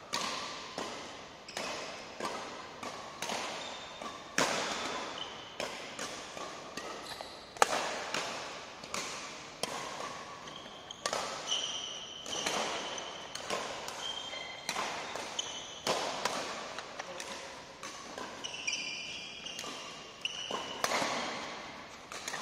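Badminton rackets hitting a shuttlecock in a fast doubles rally: sharp smacks about once a second, each followed by a short echo in a large hall. Short shoe squeaks on the court floor come in between the hits.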